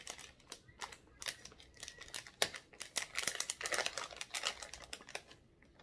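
Gummy candy packet crinkling and crackling in the hands as it is opened, in a run of irregular crackles that die down near the end.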